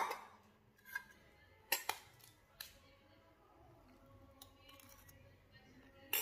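Eating utensil clicking and tapping against a plate a few times: a sharp click at the start, then three lighter taps within about the next three seconds and another click at the end.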